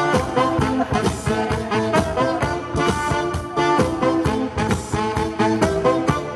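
Upbeat dance music from a live band playing over loudspeakers, with a steady drum beat.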